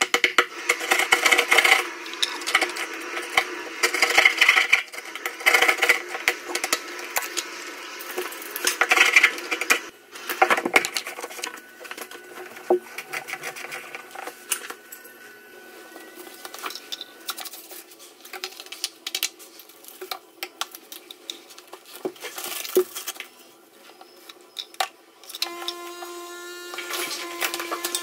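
Work noises from fitting a shower tray: scraping, knocking and clinking of tools and materials, busiest in the first ten seconds and sparser after, with a short steady hum near the end.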